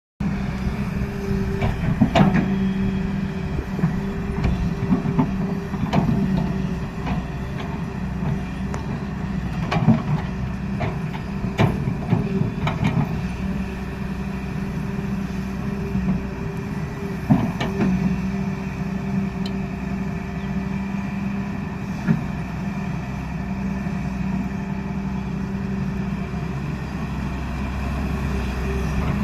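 Hyundai R210 Smart Plus hydraulic excavator's diesel engine running steadily under working load, with occasional sharp knocks, several between about two and eighteen seconds in and one more about twenty-two seconds in.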